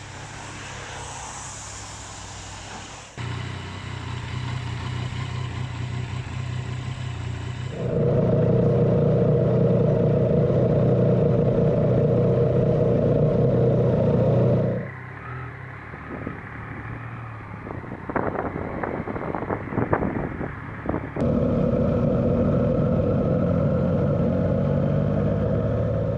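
Yamaha Tracer 900GT motorcycle's inline-three engine running, first as the bike rides up, then close to the camera mounted on the bike. It gets markedly louder for several seconds, drops back with a few sharp clicks near the middle, then picks up again.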